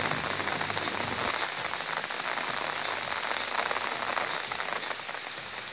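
Steady rain falling, a dense patter of many small drops, with a steady high hiss over it.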